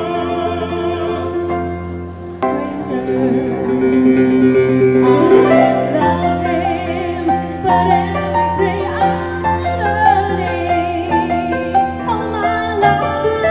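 Live vocal music with instrumental accompaniment: a man singing into a microphone, then a woman singing with vibrato. The music changes abruptly about two and a half seconds in.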